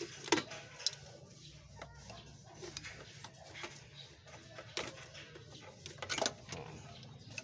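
Scattered light clicks and taps of pliers gripping and working the clamp of a small hose on a throttle body, over a faint steady low hum.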